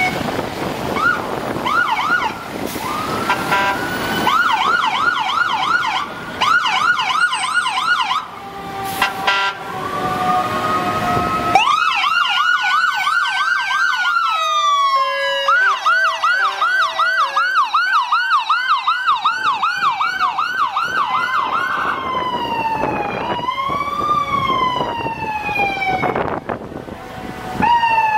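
Sirens of a passing procession of emergency vehicles (fire engine, ambulance and police SUVs), several sounding at once and overlapping. They switch between a slow wail that rises and falls and a fast yelp of about three sweeps a second.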